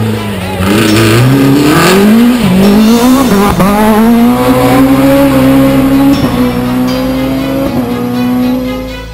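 Citroën Xsara rally car accelerating hard past the roadside, its engine note climbing with two quick gear changes about two and three and a half seconds in, then held at high revs as it goes by and away.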